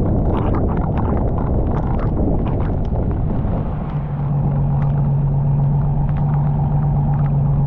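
A vehicle running over rough ground: a loud low rumble with scattered sharp knocks, and a steady engine hum that sets in about four seconds in.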